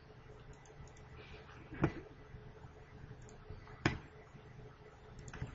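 Two sharp computer clicks about two seconds apart, with a few fainter ticks near the end, over a faint steady hum.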